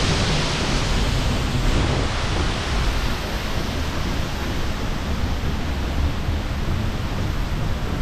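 Steady rush of a waterfall's falling water close by, a little louder in the first two seconds or so, with wind buffeting the microphone underneath.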